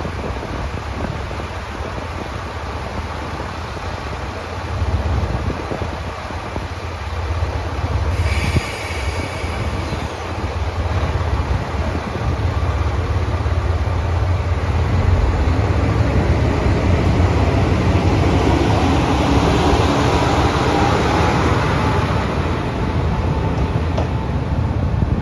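Diesel railcar running with a steady low engine rumble, and a brief high-pitched tone about eight seconds in. From about fifteen seconds the train grows louder, with rising running noise.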